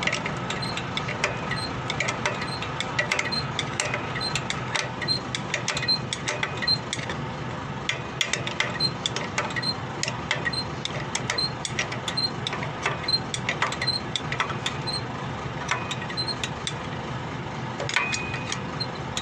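A metal tool clicking and scraping as it turns the drum-brake adjuster of an Isuzu FRR truck, tightening the brake shoes. There are many irregular sharp clicks, a short high tick repeating about every half second, and a steady low hum underneath.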